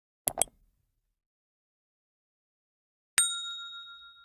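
Two quick clicks, then a single bell-like ding that rings out with a clear high tone and fades over about a second and a half.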